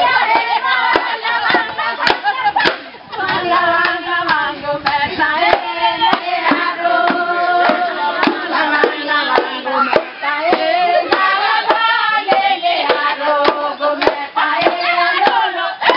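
A group of women singing a chant together over a steady clapped beat, roughly two claps a second.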